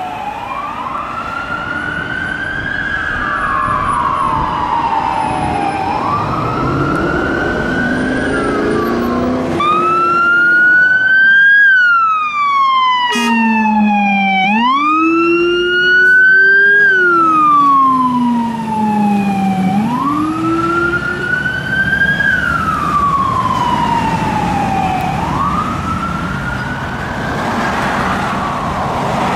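Wail siren of a Scania fire and rescue aerial pumper truck responding: a loud tone that rises quickly and falls slowly, repeating about every three seconds. For several seconds in the middle a deep tone rises and falls along with it.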